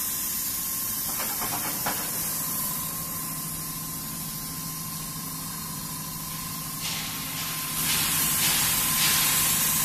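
Haige WXC80S bar peeling machine and JY100 straightening machine production line running: a steady hiss with a low hum and a thin whine, a brief rattle about a second in, and the hiss growing louder near the end.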